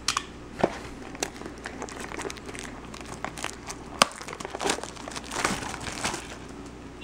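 Crinkling and tearing of plastic or foil wrapping as a sealed box of trading cards is opened, with irregular sharp clicks and snaps from the packaging.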